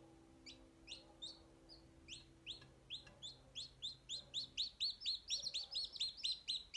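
Newly hatched chicks peeping: short high calls, sparse at first, then coming faster and louder until there are about four a second.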